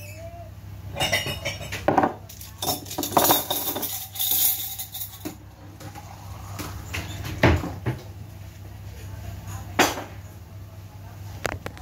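Plates and cutlery clinking and clattering as dishes of food are set out on a table. The clatters come scattered, with two sharp knocks a little after halfway and about two seconds later, over a steady low hum.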